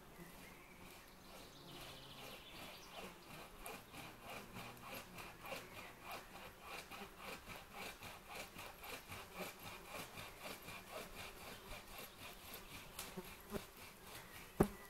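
Hand saw cutting through a tree trunk in faint, steady back-and-forth strokes, about two a second, with one sharp knock near the end.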